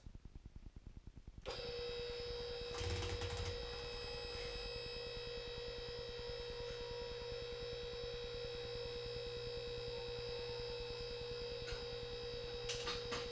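QuickJack BL-5000SLX's 12-volt electric hydraulic pump motor starting about a second and a half in and running with a steady hum, raising a car on the lift frames. A low thump comes a couple of seconds after it starts, and a few short clicks near the end.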